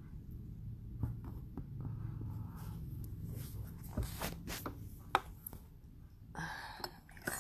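Handling noise from a hand-held phone: rubbing and scraping against its microphone, with several light clicks and taps over a low rumble and a short scratchy rustle near the end.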